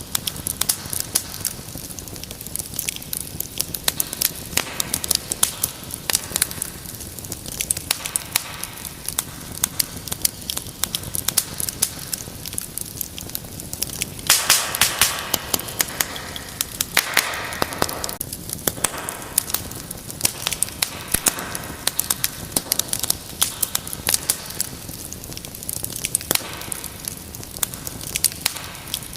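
Wood fire crackling: a steady stream of irregular sharp pops and snaps over a low rush of flame, with a louder hissing flare-up about halfway through.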